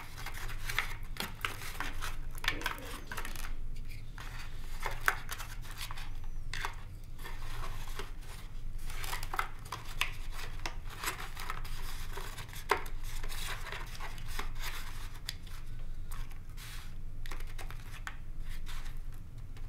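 Hands handling servo wires and a receiver inside a foam model-jet fuselage: irregular rustling, rubbing and small clicks, over a steady low hum.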